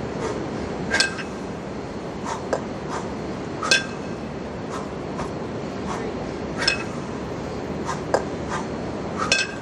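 A pair of 20 kg cast-iron kettlebells knocking together during repeated clean-and-jerk reps: a sharp metallic clink with a brief ring about every three seconds, with lighter taps in between. A steady background hum runs underneath.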